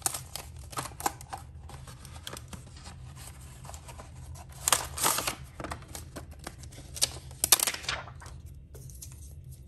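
Paper and plastic packaging of embossing folders rustling and crinkling as it is handled and opened, with the loudest crinkles about halfway through and again about three quarters of the way in.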